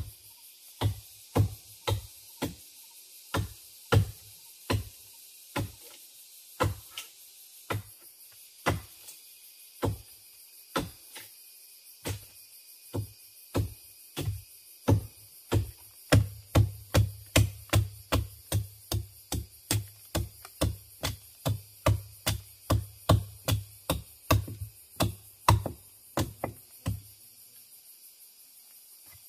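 Repeated hard blows of a hand tool striking wood, each a sharp knock with a low thud. They come irregularly at one or two a second, then quicken to a steady run of about three a second partway through, and stop shortly before the end.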